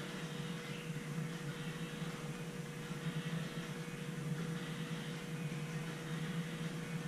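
Steady low mechanical hum of an indoor training hall, with a faint steady higher tone above it and no knocks or impacts.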